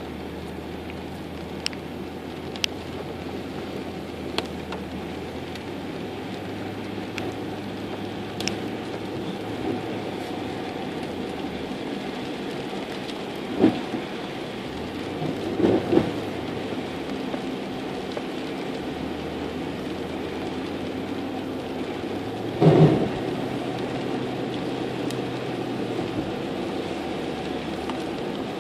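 Steady rain falling, with scattered sharp drop ticks in the first several seconds. Three short, loud low thumps stand out, about halfway through, a couple of seconds later, and near the end.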